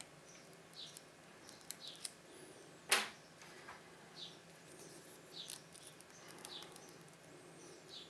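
Small scattered metallic clicks of a hook pick and tension wrench working the pins of a TESA TK6 pin-tumbler cylinder, with one louder sharp clack about three seconds in. A bird chirps faintly about once a second behind it.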